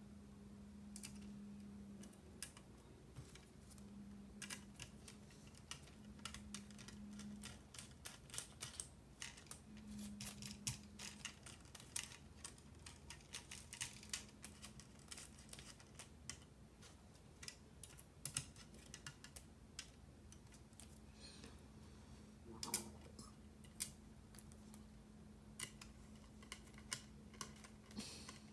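Irregular light clicks and taps from hands working on a 40% mechanical keyboard, coming in quick clusters, over a faint steady low hum.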